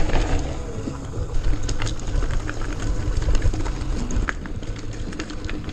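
Mountain bike riding over a rocky trail: wind rumbling on the microphone, with frequent clicks and rattles from the bike and tyres on rock.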